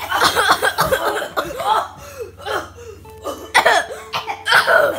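A man's wordless vocal noises: rapid short yelps, gasps and laugh-like cries, with two louder outbursts about three and a half and four and a half seconds in.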